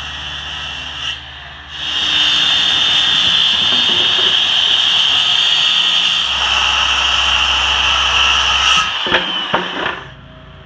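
Corded circular saw ripping a straight cut through a large wooden sheet, its motor whining steadily under load with a short dip about a second in. Near the end the blade winds down, with a few knocks as the saw comes off the cut.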